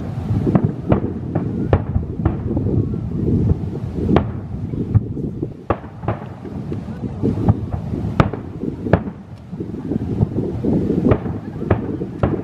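Aerial fireworks bursting in an irregular series of sharp bangs, about a dozen in a few seconds, over a steady low rumble.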